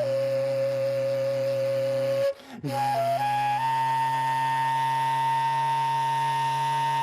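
Sybyzgy, the Kazakh end-blown flute, playing a slow melody over a low steady drone. It holds one long note, breaks off briefly for a breath about two seconds in, then climbs in a short phrase to a long, higher held note.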